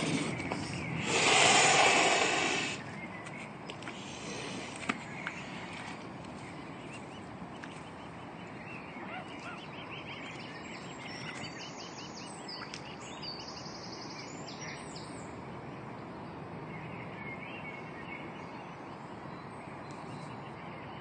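Mute swan hissing, a defensive threat at a dog near its cygnets: a loud hiss breaks off just after the start and comes again for under two seconds. After that only a quieter outdoor background with faint high chirps.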